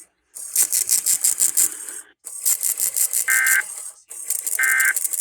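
Emergency Alert System end-of-message data bursts: two short buzzy digital tone bursts about a second and a quarter apart, closing the monthly test. Under them runs a fast, loud rattling crackle that breaks off briefly about every two seconds.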